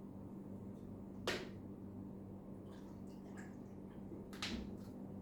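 Two sharp clicks about three seconds apart, with a few fainter ticks, from kitchen containers being handled while making a smoothie, over a steady low electrical hum.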